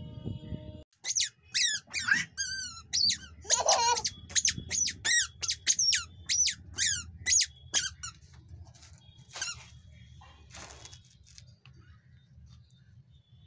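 A toddler's squeaky shoes squeaking with each step, about two short, high squeaks a second for some seven seconds, then stopping.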